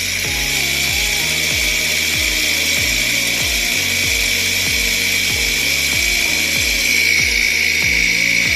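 BLDC motor and gearbox driving a homemade gear pump, made from a motorcycle pump, with a steady high whine as it pumps hydraulic fluid. Background music with a steady beat plays under it.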